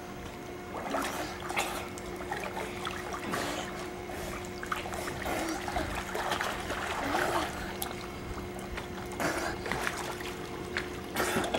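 Pool water splashing and churning as a child swims, strokes breaking the surface in irregular splashes, over a steady low hum.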